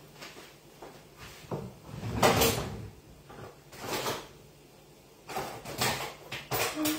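Kitchen handling noises: irregular clattering and scraping, loudest about two seconds in, with several more in quick succession near the end.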